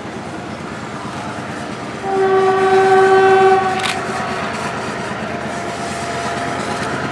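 Diesel locomotive hauling a passenger train, running steadily, with one horn blast of several tones about two seconds in that lasts about a second and a half.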